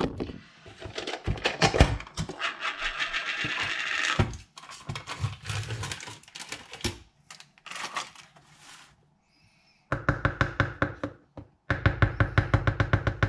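Background music with a fast, even beat, with a short break near the middle.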